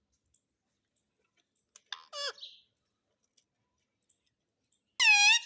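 Pet parrot calling twice: a short call about two seconds in that drops in pitch, then a louder, shrill call near the end lasting about half a second.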